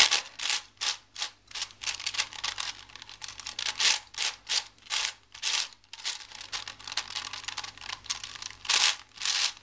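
Plastic layers of a V-Cube 7 Illusion (a 7x7x7 twisty puzzle cube) being turned quickly by hand: a quick run of plastic clicks and rasps, two or three turns a second.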